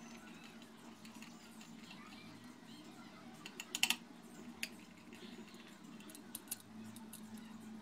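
Small sharp clicks and taps of a screwdriver and metal hard-drive parts being handled. A quick run of clicks comes about four seconds in, then single ticks, over a steady low hum.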